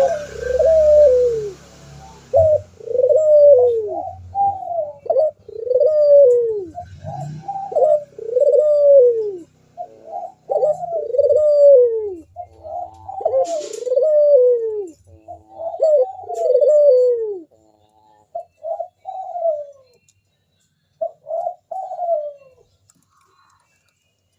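Local puter dove cooing ('manggung'): a long run of rounded, falling coos, about one a second, then a few shorter coos before it stops about 22 seconds in.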